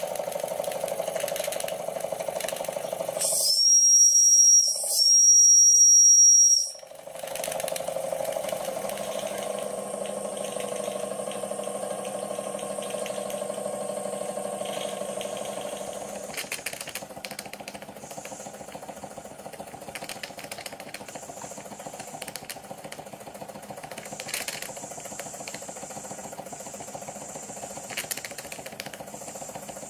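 Wilesco model vertical-boiler steam engine running steadily, with two high-pitched blasts from its steam whistle a few seconds in, each lasting over a second.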